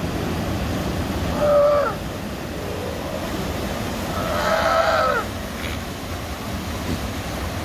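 Sea lion calls: two pitched cries, each dropping in pitch at its end, a short one about one and a half seconds in and a longer, louder one about four seconds in, over steady surf.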